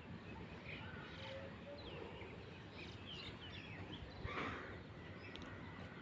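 Faint background noise with a few short, scattered bird chirps, and a brief rush of noise a little past four seconds in.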